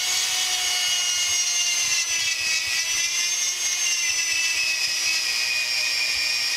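Dremel rotary tool grinding oil grooves into a freshly poured babbitt bearing: a steady high-pitched whine whose pitch sags slightly over the seconds.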